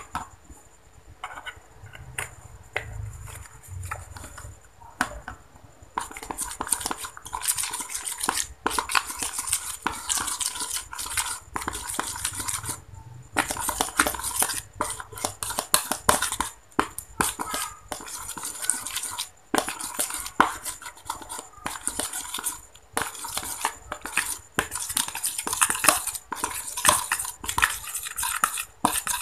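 Steel spoon stirring and scraping in a plastic bowl, clicking and rasping against the sides as it works a thick white paste of wood glue and slime activator that has curdled into crumbly, tofu-like lumps instead of slime. A few scattered clicks at first, then fast, busy stirring in runs with short pauses.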